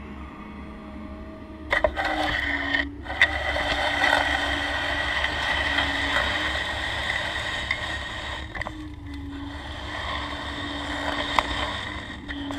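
Hydraulic pump of a 1:8 scale RC excavator humming steadily, its pitch dipping slightly under load, while the steel bucket scrapes and cuts through sandy soil from about two seconds in, with a few sharp clicks.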